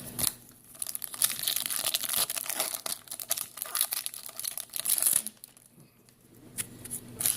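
Plastic wrapper of a Topps football card pack crinkling and tearing as it is opened. It gives a dense run of scratchy crackles for about five seconds, then a short pause and a few more crackles near the end.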